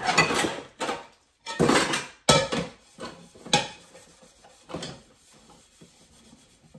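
Dishes being washed by hand at the sink: a brush scrubbing a pan and plates, with dishes knocking and clattering in about six short bursts that die down after about five seconds.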